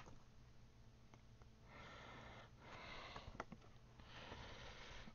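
Near silence: quiet room tone with a few faint, soft hisses and tiny clicks.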